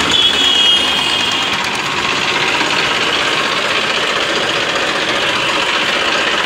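Massey Ferguson tractor's three-cylinder diesel engine running steadily at an even level.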